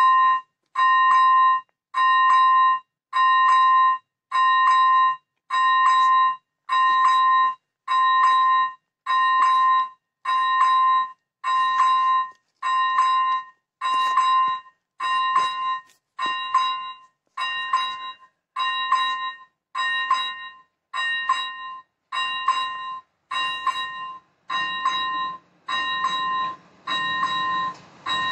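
Electronic warning bell of an AŽD level crossing sounding a single pitched chime about once a second. In the last few seconds, the noise of an approaching train rises beneath the chimes.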